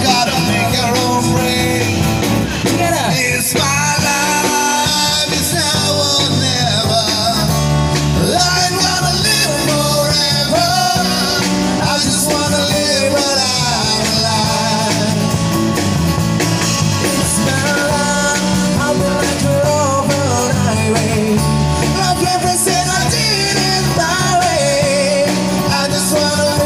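A live band sings and plays amplified through microphones: two vocalists with electric guitar, acoustic guitar and drum kit, one song running without a break.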